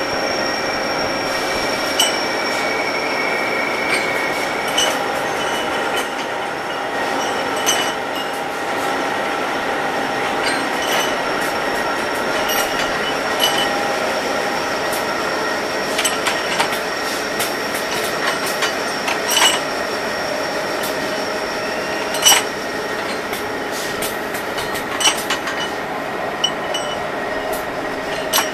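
Steady whine and hum of machinery running, with several thin steady tones. Over it come sharp metallic clanks every two to three seconds, about ten in all, as steel connecting rods are set onto the steel feed rail of a double disc grinder.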